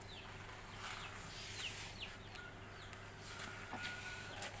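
Birds chirping faintly: short falling chirps, one every second or so, over quiet outdoor background, with a brief thin whistle-like tone near the end.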